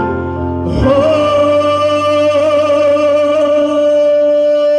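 A male singer holds one long final note over a karaoke backing track, starting about a second in after a short break.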